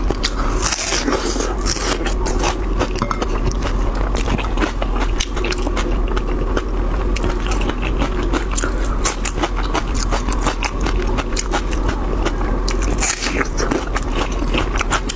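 Close-miked crunching bites and chewing of raw red onion: a dense run of crisp, crackling clicks throughout, over a steady low hum.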